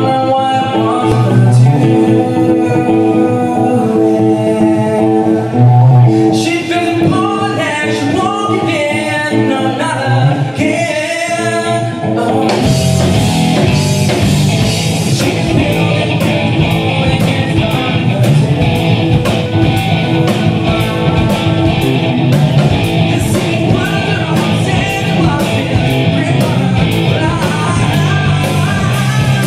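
Live rock band: electric guitar and a male lead singer, then about twelve seconds in the full band with drums comes in and the song goes on at full strength.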